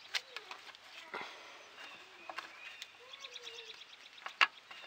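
A few sharp clicks and knocks of a hand working in at the mower's underside near a bolt, the loudest near the end, with birds chirping in the background.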